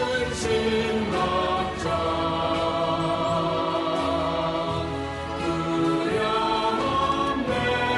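Choral worship music with slow, held chords that change every second or two.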